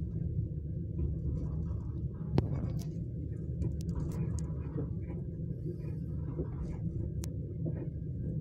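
Steady low rumble of a passenger train running along the track, heard from inside the carriage, with scattered clicks and rattles and one sharper knock about two and a half seconds in.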